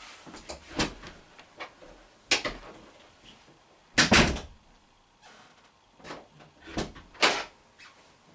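A door being handled: a few separate knocks and thuds with quiet between them, the loudest a double bang about four seconds in.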